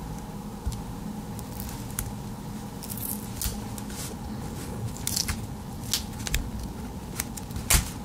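Close-up handling of a Victorinox Swiss Army knife: scattered small clicks, scrapes and tearing rustles as fingers pick at and peel black tape off a screwdriver bit, with a sharper click near the end.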